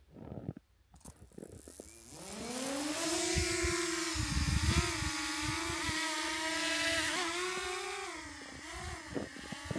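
Small quadcopter drone's propellers spinning up for take-off, a rising whine that settles into a steady buzz. Low rumbles come through about four seconds in, and the whine wavers in pitch and fades away near the end.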